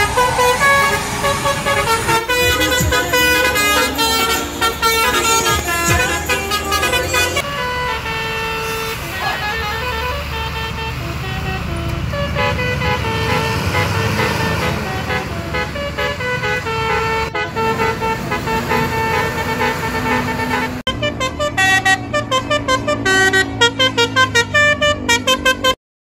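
Tour buses' 'telolet basuri' multi-tone musical air horns playing melodic note sequences, one bus after another, over the low running of the bus engines. Near the end the horn plays rapid short notes in quick succession.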